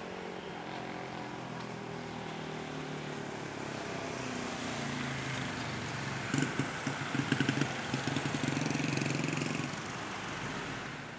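Jet engines of a Boeing 787 airliner on its landing rollout: a steady rush with a low drone, growing louder and fluttering for a few seconds past the middle, with a whine above it, then easing off near the end.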